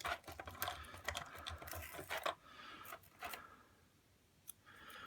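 Small plastic toy parts and packaging being handled: a run of light clicks and rustling for about two and a half seconds, a few more clicks, a short lull, then one last click.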